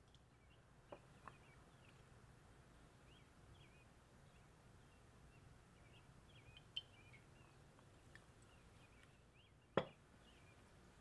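Faint chirping of small birds in the background, with a few light clicks and one sharp knock near the end as a glass measuring jug is set down on the counter.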